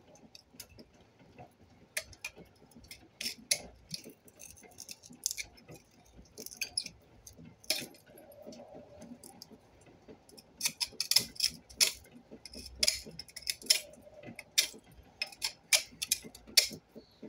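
Irregular light metallic clicks and clinks of small parts, wires and tools being handled on a workbench, getting busier about two thirds of the way in.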